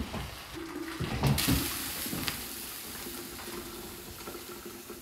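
Hot milk with yerba mate poured from an aluminium pot through a metal strainer into a kettle. The pour makes a steady splashing trickle that starts about a second in, just after a few knocks of the spoon against the pot.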